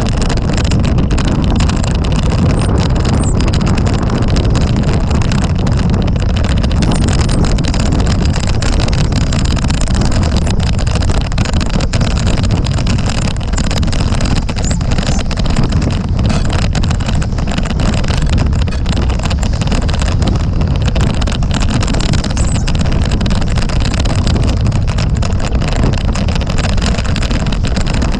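Strong wind buffeting the microphone over the steady rush and spray of water off a Sunfish sailboat's hull as it planes at speed.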